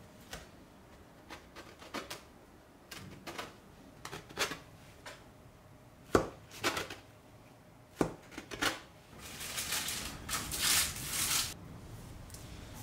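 A knife cutting through a filled dough log and knocking on a wooden board: a series of sharp taps, the loudest about six and eight seconds in. Near the end, a few seconds of rustling as the pieces are set on a parchment-lined baking tray.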